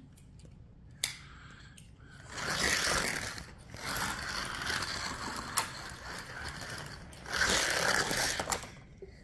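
Toy slot car's small electric motor whirring as the car runs around the plastic track, louder twice as it passes close by. A single click about a second in.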